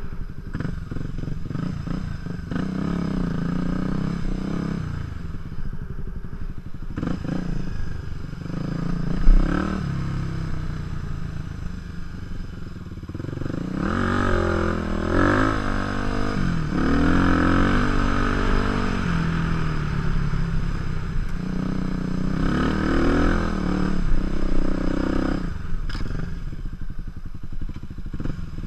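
Supermoto motorcycle engine running under way on a dirt trail, the revs rising and falling with the throttle. There is a sharp knock about nine seconds in.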